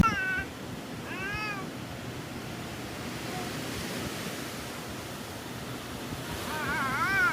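A cat meowing three times, the last call longer and wavering, over a steady background of surf or wind noise.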